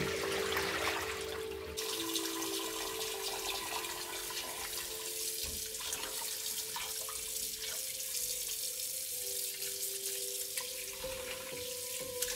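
Water poured out of a stainless-steel pot into a steel sink for the first couple of seconds, then a kitchen tap running steadily into the pot as pork bones are rubbed and rinsed by hand. The bones are being soaked and rinsed to draw out the blood.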